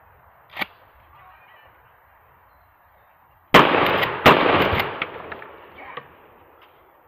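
A 12-gauge shotgun blast about three and a half seconds in, fired into a flat-screen TV, followed well under a second later by a second loud crack and a spread of smaller knocks and clatter dying away as the set is blown over. A single sharp click comes first, less than a second in.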